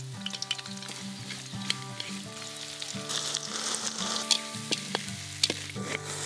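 Food sizzling as it fries in a hot pan and is stirred, with sharp clicks of a utensil against the pan; the sizzle swells about three seconds in.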